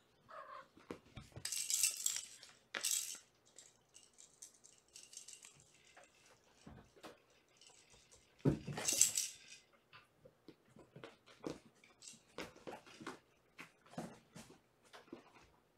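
Kittens playing and scrambling about: scattered light scuffles and taps, with two louder bursts of rustling, one about two seconds in and one about nine seconds in.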